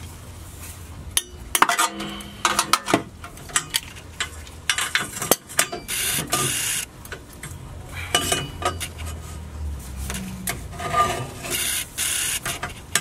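Socket wrench and extension bar clinking against metal, with short spells of rapid ratchet clicking, while working on exhaust downpipe bolts.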